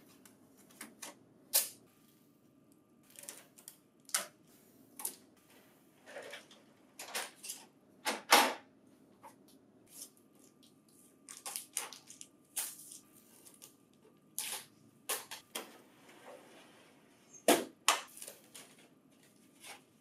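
Irregular clicks, knocks and short rustles of packing tape and cardboard being pulled off and out of a printer's tandem paper tray unit and its plastic drawers. The loudest knocks come about eight seconds in and near the end.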